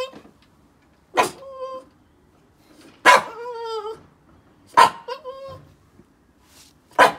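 Boston terrier barking four times, about every two seconds, each sharp bark trailing off into a short pitched whine; the one about three seconds in draws out for about a second. It is excited barking to get someone to play.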